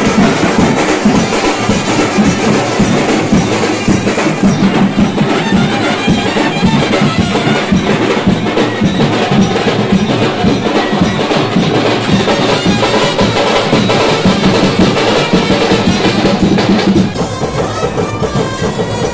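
Loud drumming with other percussion playing a dense, steady beat, dropping a little in level near the end.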